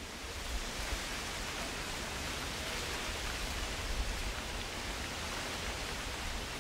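A steady, even rushing noise with no pitch or rhythm.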